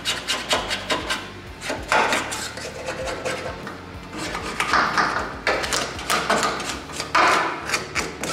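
Hand scraper scraping chemically softened paint off a steel car-body pillar: several drawn-out scraping strokes with small clicks and knocks of the blade against the metal in between.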